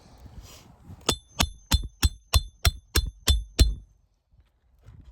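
Hammer driving a roofing nail into an asphalt shingle: nine quick strikes about a third of a second apart, each with a short metallic ring. The hammer is setting a nail back into a replacement shingle.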